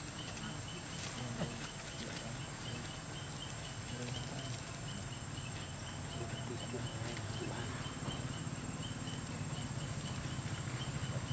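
Outdoor ambience: insects chirping in an even pulse, about three chirps a second, over a steady high whine and a low hum.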